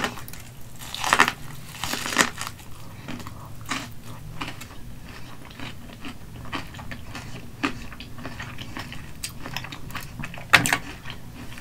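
Close-miked bites into corn on the cob coated in mayo and crushed Hot Cheetos, followed by chewing with small crunches and mouth clicks. Loud crunches come about one and two seconds in and again near the end.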